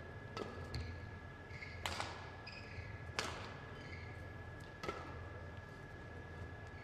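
Badminton rackets striking a shuttlecock in a rally: four sharp hits about a second and a half apart, ringing briefly in a large hall.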